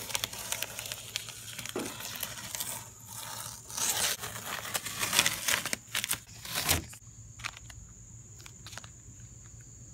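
Masking tape being peeled off a car's front lip spoiler and crumpled, a crinkly tearing sound. About seven seconds in it drops away to a few faint clicks.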